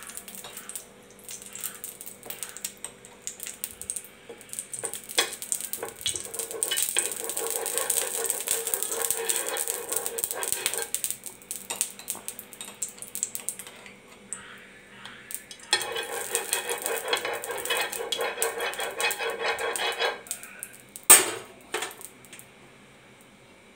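Steel spoon scraping and clinking against a plastic jar and a hot non-stick tawa as fat is scooped out and spread over the pan, with light sizzling. There are two longer stretches of scraping and one sharp clink near the end.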